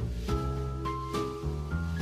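Gentle background music from a cartoon score: steady low notes with a melody line changing pitch every half second or so.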